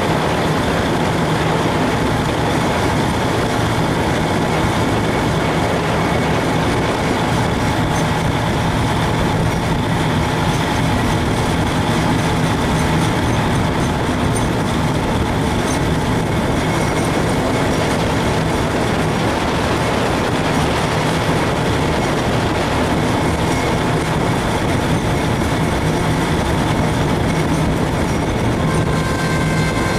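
Steady running noise of a vehicle in motion, heard from on board, with a constant low hum under it.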